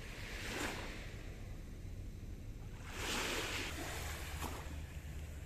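Small waves washing onto a sandy shore, with a swell about half a second in and a fuller wash around three seconds in.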